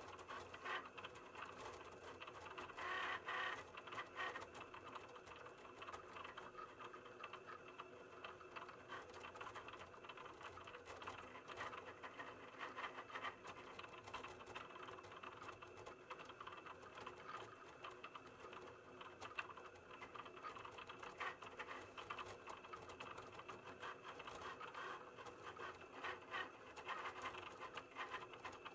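Cricut cutting machine running a print-then-cut job: the tool carriage motor runs steadily and the blade head moves back and forth over the mat with rapid ticking, a little louder about three seconds in.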